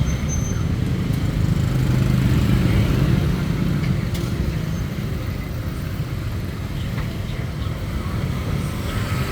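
Road traffic running steadily past, a low rumble of passing vehicles with a few faint clicks.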